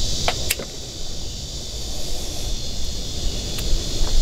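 Wire strippers snipping and pulling the insulation off a red wire: two sharp clicks about half a second in and a fainter one near the end, over a steady background hiss and low rumble.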